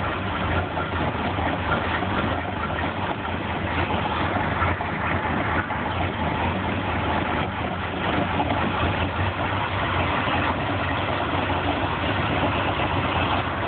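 Mercury 4.3-litre V6 marine engine idling steadily.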